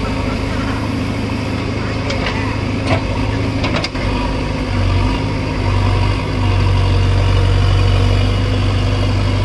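JCB 3DX backhoe loader's diesel engine running as the backhoe hydraulics work, its low hum growing louder and steadier from about six and a half seconds in as the arm takes the machine's weight. A few sharp knocks sound around three to four seconds in.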